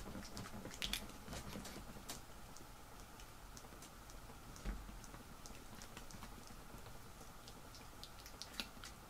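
Faint scattered clicks and rustling, with one soft low thump about halfway through: movement noise from a person shaking their head hard, doing a shake test with earbuds in.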